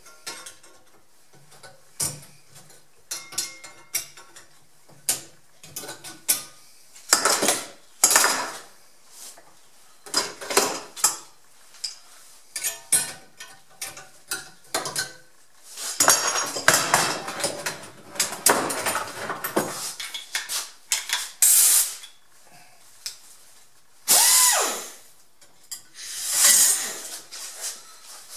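Hand shears cutting sheet steel: irregular short snips, scrapes and metallic clinks, with a longer stretch of steady cutting noise past the middle and a brief squeal of metal on metal near the end.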